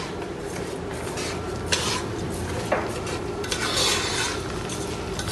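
Raw rice being stirred in hot oil in a non-stick pot, a metal utensil scraping and rasping against the pot in several strokes over a light sizzle.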